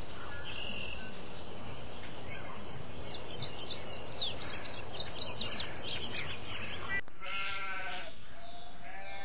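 Outdoor countryside ambience with a steady hiss and small bird chirps. About seven seconds in it switches abruptly to sheep bleating in long, wavering calls.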